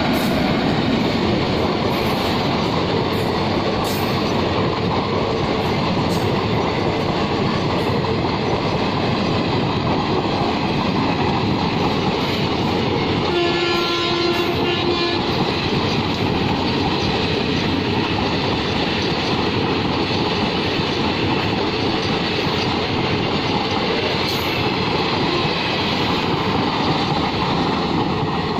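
Long passenger express behind a WAP-4 electric locomotive rolling past at speed: a steady loud rush of coach wheels on the rails, with clicks and clatter over the rail joints. A horn sounds for about two seconds about halfway through.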